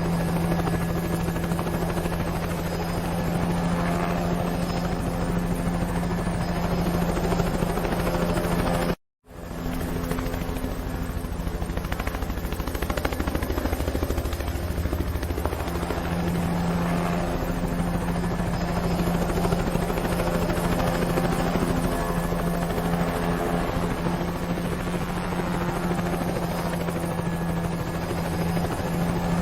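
Helicopter sound effect: steady rotor chop with an engine hum, cutting out completely for a moment about nine seconds in before it resumes.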